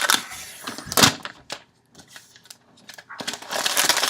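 Packaging being handled during an iPad unboxing: rustling and crinkling, with a sharp click about a second in, then louder, denser crinkling near the end.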